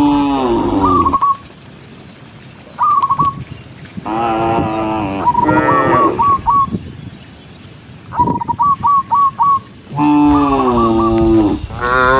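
Cattle mooing about four times, each moo a second or two long and falling in pitch. Between the moos come short runs of quick, high whistled chirps.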